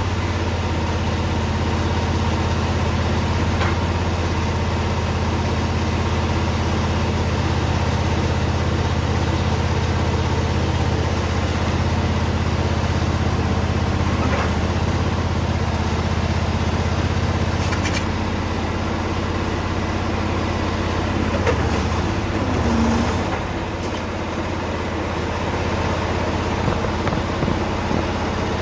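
An engine running steadily at an even speed, dipping briefly in level about 23 seconds in.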